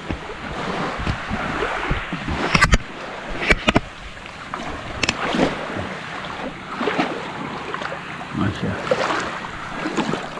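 Shallow sea water sloshing and splashing around a person wading at the waterline. A few sharp knocks come about two and a half to four seconds in.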